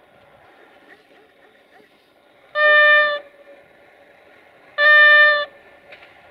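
Horn of a Duewag Class 628 diesel railcar sounding two short blasts of the same note, each under a second and about two seconds apart, over the faint running noise of the approaching train.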